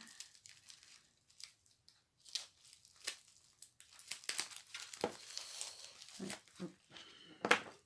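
Plastic packaging crinkling and tearing in irregular bursts as it is opened by hand, with the loudest rip about seven and a half seconds in.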